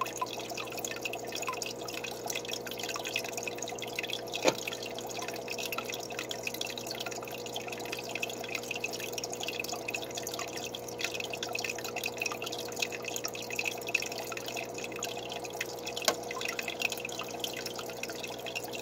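Water dripping and trickling in an aquarium over a steady hum, with a sharper tick about four seconds in.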